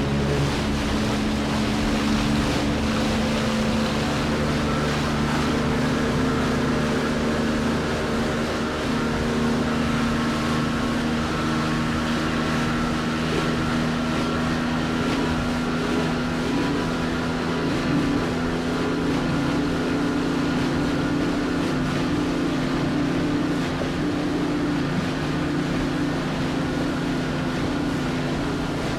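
Water washing against a boat's hull, over a steady low hum from the boat's engine that holds the same pitch throughout.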